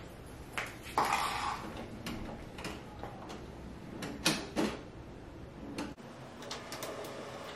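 Canon Pixma iX6820 inkjet printer's mechanism clicking and knocking at irregular intervals during its first power-on setup after the ink cartridges were installed. There is a brief whir about a second in, a louder pair of knocks a little past the middle, and a run of light ticks near the end.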